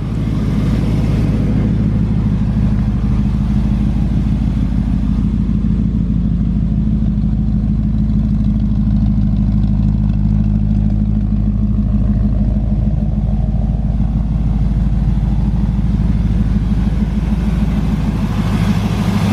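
1964 Chevrolet Impala's 283 small-block V8 idling steadily.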